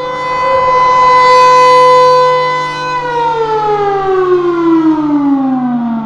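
Federal Signal Thunderbolt 1000 rotating outdoor warning siren holding a steady tone that swells and fades as its horn turns. About three seconds in, it winds down, its pitch falling steadily.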